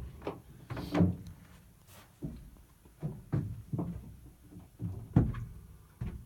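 Footsteps and knocks on a boat's wooden interior: a series of short dull thuds, roughly one every second.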